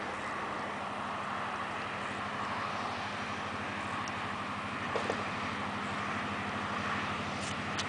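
Distant EMD-powered diesel locomotive approaching, its engine a steady low drone with a faint even pulsing.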